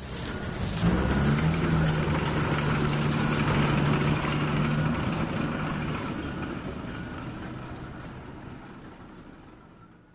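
Intro sound effect of a heavy machine's engine running steadily among jingling coins, swelling about a second in and fading out over the last few seconds.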